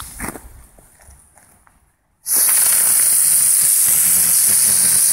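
Faint crackles die away, then about two seconds in a Komet Geisterstunde ground-spinner firework ignites with a sudden, loud, steady hiss that carries on as it spins out its sparks.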